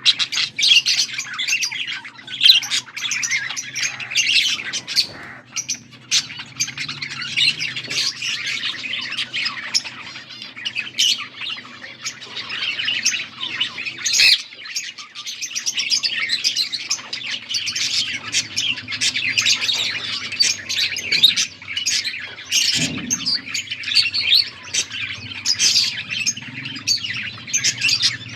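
A flock of budgerigars chattering continuously: rapid warbling, chirps and short squawks overlapping without a break.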